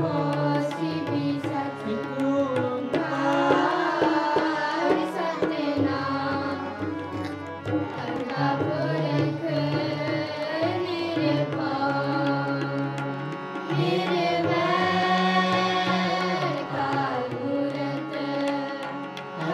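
Sikh kirtan: several harmoniums playing held chords with tabla drumming, while a man leads a sung hymn and children sing along.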